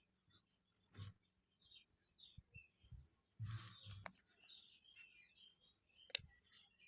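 Faint bird chirping throughout, with a few soft knocks and one sharp click about six seconds in.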